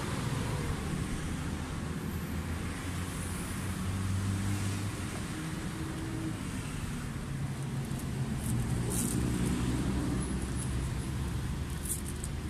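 Road traffic: motor vehicle engines running and passing close by, a steady low hum whose pitch shifts as vehicles come and go.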